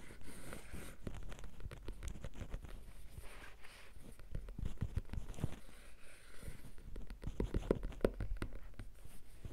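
Headphone cable and its plug handled and rubbed close to the microphone as ASMR: a run of small clicks, taps and scratchy rubbing, with a cluster of louder taps about seven seconds in.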